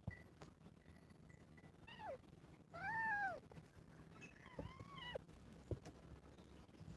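A kitten meowing three times during rough play: a short falling mew, then a louder, longer meow that rises and falls, then a third meow about two seconds later.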